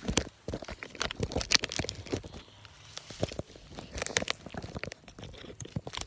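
Dry dead sticks crunching and crackling as they are handled and snapped, in irregular sharp cracks.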